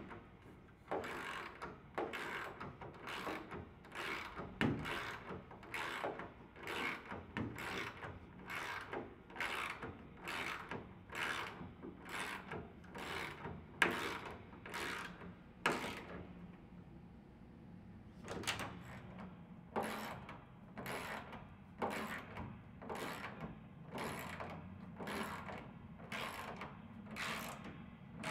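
Ratcheting socket wrench tightening a bolt on a metal wall-bed mechanism, clicking in a steady rhythm of about two strokes a second, with a short break about halfway through.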